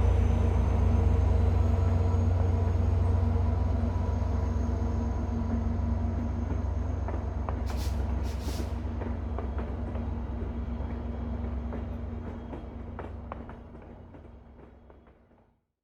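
Passenger train running, with a heavy low rumble and a steady hum, scattered clicks, and two short hisses of air about halfway through. The sound slowly fades out near the end.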